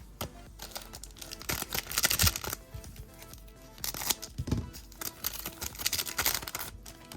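Plastic crinkling and rustling as trading cards and their wrapping are handled, in several bursts, over quiet background music.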